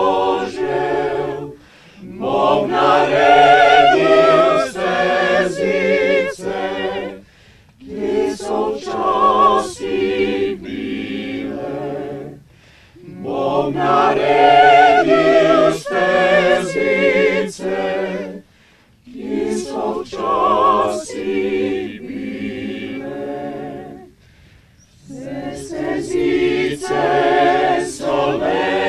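Unaccompanied choir singing in phrases of about five seconds, each ending in a short pause for breath, with wavering held notes.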